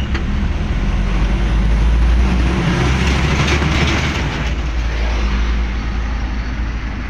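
Mitsubishi L300 pickup driving, its engine running with a steady low rumble under road and traffic noise heard from inside the cab. A louder rush of noise swells about three to four seconds in, then dies away.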